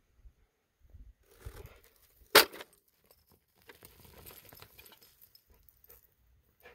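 A single sharp click or snap about two and a half seconds in, with faint rustling handling noise before and after it.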